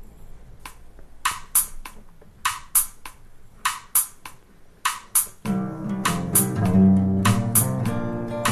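Amateur band demo picked up on a laptop's built-in microphone: a steady rhythm of crisp, high percussion hits. Guitar comes in about five and a half seconds in, playing full, busy notes under the percussion.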